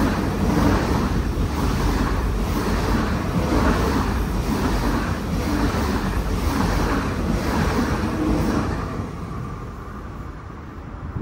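Deutsche Bahn ICE high-speed train passing at speed: a loud rush of wheels and air with a regular beat about every 0.7 s as the bogies go by, fading over the last couple of seconds as the end of the train passes.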